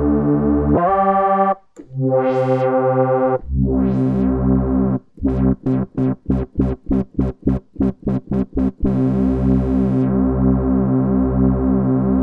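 Synth bass patch on the Pure Synth Platinum software synth, played from a keyboard: low held notes, each opening brightly at the attack as the filter envelope sweeps, then near the middle a quick run of short staccato stabs about three a second, then a long held note. The sweeps show off the hold stage of the filter envelope.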